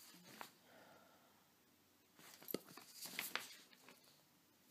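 Near silence: quiet room tone with a few faint rustles and light taps, the clearest about two and a half and three seconds in.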